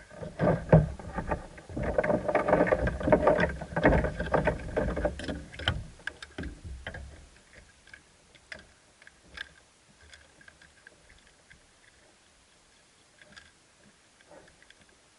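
Handling noise as a caught largemouth bass is held and unhooked on a kayak: several seconds of loud, irregular rumbling, knocks and rustling, then scattered light clicks as the lure is worked free.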